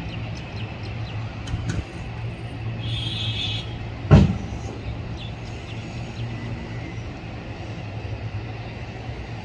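Steady low engine rumble, with one loud, short thump about four seconds in.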